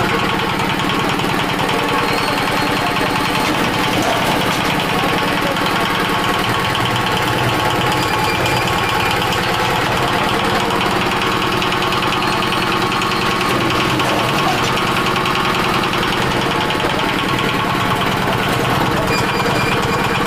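Small engine powering a mini concrete lift, running steadily at an even beat.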